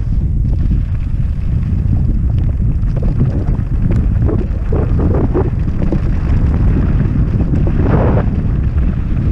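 Wind buffeting a helmet-camera microphone as a hardtail mountain bike is ridden over a stony dirt trail, with short crunches and rattles from the tyres and bike on loose gravel mixed in.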